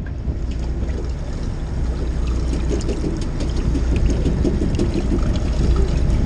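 Sportfishing boat's engine running with a steady low rumble, with water washing and splashing along the hull.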